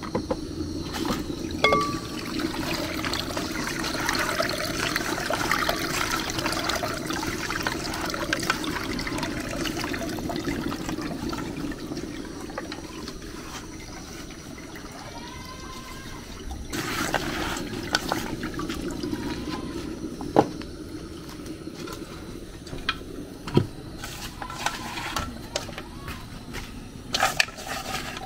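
Palm nut juice poured from an aluminium pot into plastic bowls: a steady splashing pour through the first half, and again briefly later. Scattered sharp knocks and clinks of the metal pot being handled follow in the second half.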